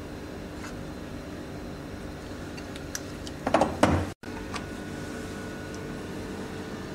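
Steady hum of running lab equipment, with a couple of loud knocks of tubes or caps being handled on the bench about three and a half seconds in, then the sound cutting out for an instant.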